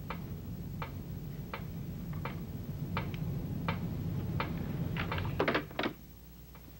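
Evenly spaced ticks, about one every three-quarters of a second, over a low steady hum; about five seconds in, a quick cluster of louder knocks as a telephone handset is put down in its cradle, and the hum then stops.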